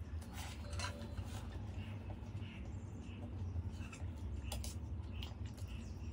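Close-miked eating: noodles slurped and chewed with small wet mouth clicks, and a metal fork clinking against a steel plate, over a steady low hum.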